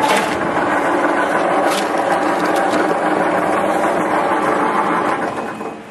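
Stainless-steel vegetable dicing machine running as it dices red onion, a steady mechanical noise; the noise drops away near the end.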